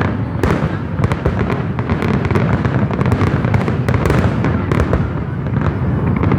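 Fireworks going off in rapid succession: many sharp cracks and bangs overlapping on a continuous low rumble, without a break.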